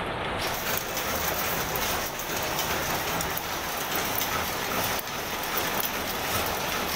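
Grass-mat weaving machine running, a steady dense clatter of many rapid small clicks from its moving mechanism.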